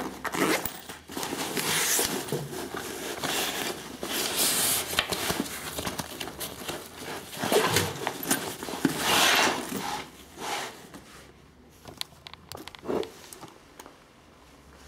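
Backpack fabric and webbing straps rustling and scraping as they are handled, with small clicks of the plastic buckle and zipper pulls. The rustling dies down after about ten seconds, leaving a few faint clicks.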